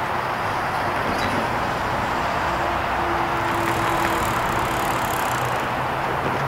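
Road traffic passing close by: cars and pickup trucks driving across the railroad crossing, with steady tyre and engine noise that swells briefly as a truck goes past in the middle.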